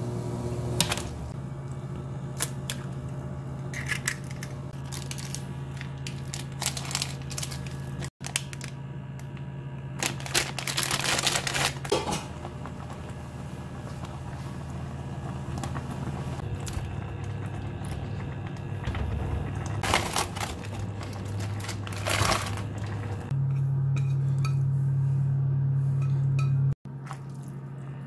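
Cooking at a stainless steel pot of ramen: scattered clinks, clatters and rustling as utensils and a metal strainer knock against the pot and ingredients are dropped in, over a steady low hum.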